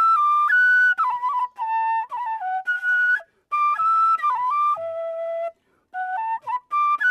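Background music: a single solo melody played note by note in short phrases, with brief pauses between them.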